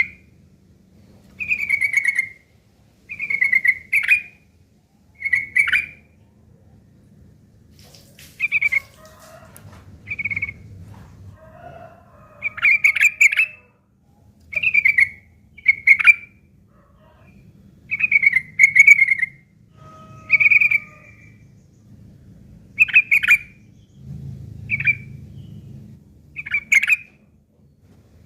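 Yellow-vented bulbul singing short, loud phrases, one every second or two, with rough chattering calls mixed in, the 'ngeriwik kasar' that song-bird keepers prize, its song filled with phrases copied from a long-tailed shrike.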